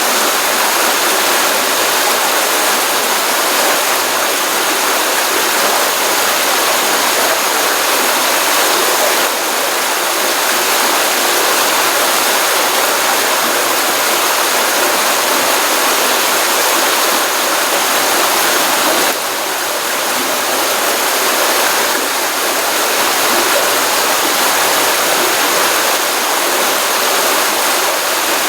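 Pond outflow stream running steadily after a rainstorm, a continuous rushing of water with no breaks. The loudness dips slightly twice, about a third and two thirds of the way through.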